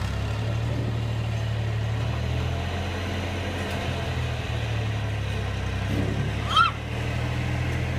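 A steady low motor hum, like an engine idling, with one short high-pitched call about six and a half seconds in.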